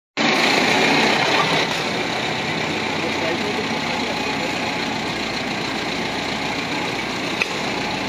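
Motorcycle rickshaw running along a wet street: steady engine and road noise, a little louder in the first second or so.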